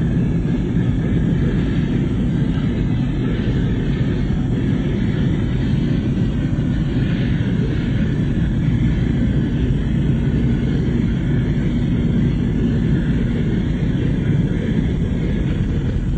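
Steady low rumble of a car driving on a wet road, with engine and tyre noise heard from inside the cabin.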